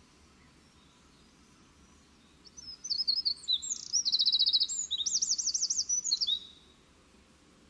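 A small songbird sings one high-pitched song of about four seconds, made of rapid trills and quickly wavering phrases, starting a couple of seconds in.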